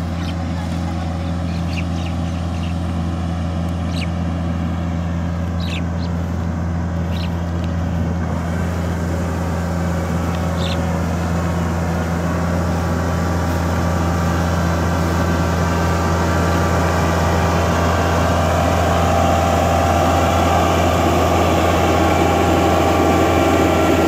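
Yanmar AG600A rice combine harvester's diesel engine running with a steady deep drone, growing gradually louder over the second half.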